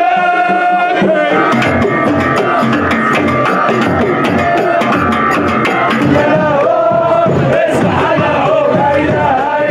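A group of men chanting together to frame drums and small hand drums. It opens on a long held note, with a run of drum strokes under the chant through the first half.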